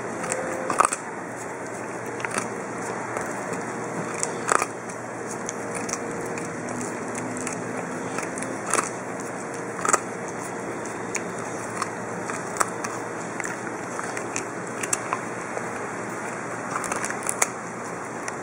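Norwegian Elkhound puppy chewing and biting off pieces of a raw carrot wedged in a rubber Kong bone: irregular crisp crunches, roughly one every second or two, over a steady background hiss.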